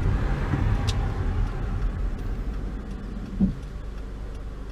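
Car driving on a wet road, heard from inside the cabin: a steady low engine and road rumble, with a single thump about three and a half seconds in.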